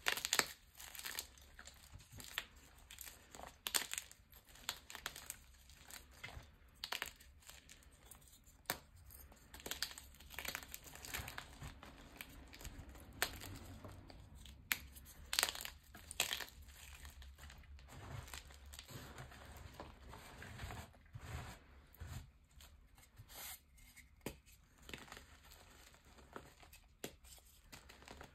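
Hands breaking and crushing pieces of dyed gym chalk: an irregular run of dry crunches, snaps and crumbling crackles.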